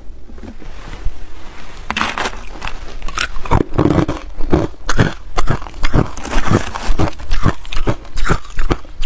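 Crushed ice crunching in a rapid, uneven series of sharp crunches that start about two seconds in and settle to roughly two a second.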